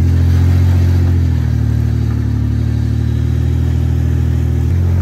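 Off-road 4x4's engine running steadily at low revs, its pitch shifting slightly about a second in and again near the end.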